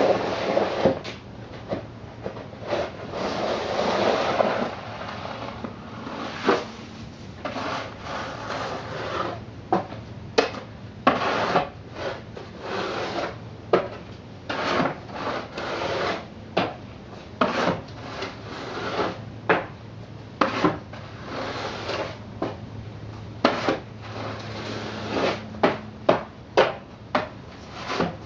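Snow shovel scraping and pushing snow: a few seconds of continuous scraping, then a run of short, irregular strokes about one a second.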